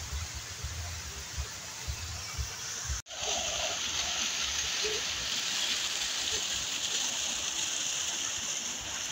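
Waterfall's rushing water, a steady hiss. For the first three seconds the microphone picks up wind rumble. About three seconds in the sound cuts, then resumes louder and brighter.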